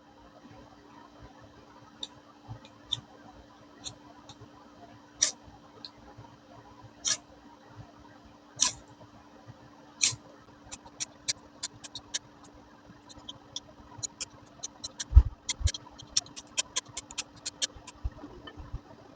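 Ferrocerium rod being scraped with a steel edge to throw sparks onto tinder. A few single short rasping strikes come first, then a quick run of repeated strikes from about ten seconds in, with one dull thump partway through.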